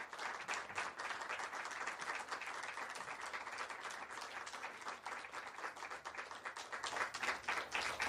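Audience applauding, many hands clapping, growing louder near the end.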